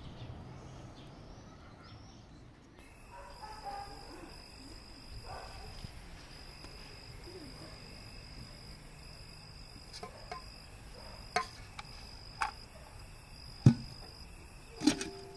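Insects trilling steadily in long stretches with short breaks, starting about three seconds in. A few sharp knocks sound in the last third, the loudest near the end.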